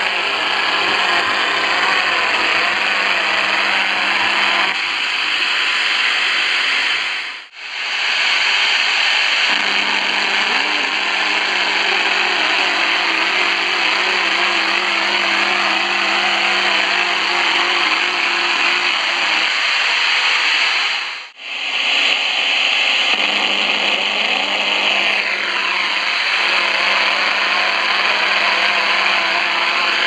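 Tecsun PL-310ET shortwave radio tuned off-station to 11571 kHz, its speaker giving a loud, steady buzz of static with a low hum and, for a stretch, a warbling tone: radio-frequency interference (dirty electricity) from a running washing machine's electronics. The sound cuts out briefly twice, about a third of the way in and again about two thirds in.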